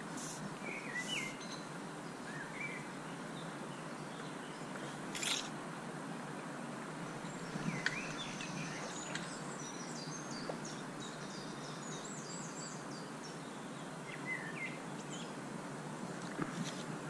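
Steady rush of flowing river water, with small birds chirping now and then and a quick run of high bird notes in the middle. A single sharp click comes about five seconds in.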